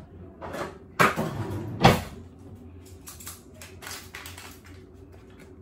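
Objects being handled in a kitchen: two sharp knocks, about a second in and again just under a second later, then lighter clicks and rustling as scissors and a drink-mix packet are picked up.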